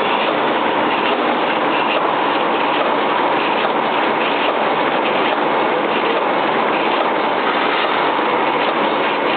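Toothpick packaging machine running with a steady, dense mechanical clatter.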